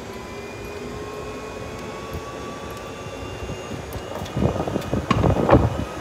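Golf cart driving along a paved road: a steady run of motor and road noise with a faint whine rising slowly in pitch, then louder knocks and rattles about four seconds in as the cart jolts.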